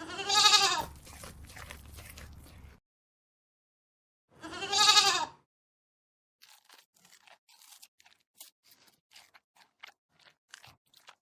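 An animal gives two short calls, each rising and then falling in pitch, about four seconds apart. A few seconds of irregular crunching clicks follow.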